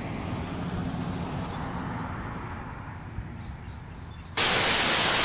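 Steady outdoor background rumble and hiss, then about four seconds in a sudden loud burst of white-noise static that stops abruptly into dead silence.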